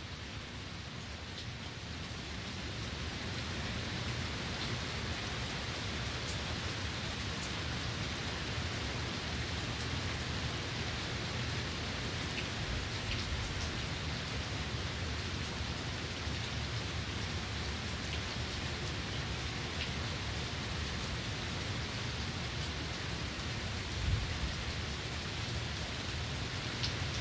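Steady rain falling, an even hiss with scattered drops ticking on surfaces, swelling slightly over the first few seconds. A single brief low thud about 24 seconds in.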